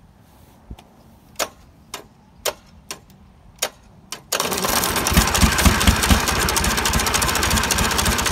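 A Nissan (UD) four-cylinder two-stroke diesel with a blower, unused for 17 years, turning over loudly on its starter with a rapid pulsing beat as he tries to get it going; it starts about four seconds in. Before that come a handful of separate sharp clicks.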